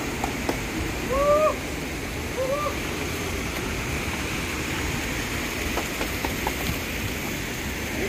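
Steady rush of a waterfall about 20 to 25 metres tall pouring into its pool. Two short hooting calls, each rising then falling, come about a second in and again a second later, and a few light clicks of stones underfoot follow near the middle.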